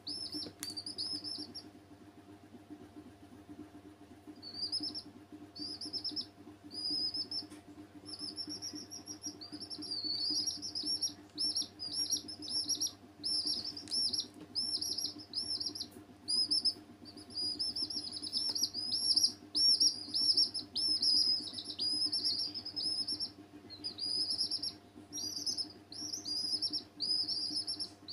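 Baby chicks peeping: short, high, downward-sliding peeps repeated over and over, with a brief lull a couple of seconds in and then almost without pause. A steady low hum runs underneath.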